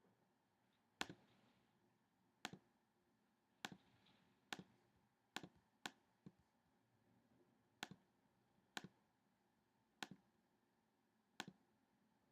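Computer mouse button clicking: about ten sharp clicks at irregular intervals, a second or so apart, some heard as quick press-and-release pairs.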